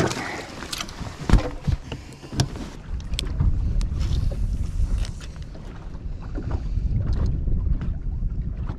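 Wind buffeting the microphone as a steady low rumble, with one sharp knock about a second and a half in and a few lighter clicks.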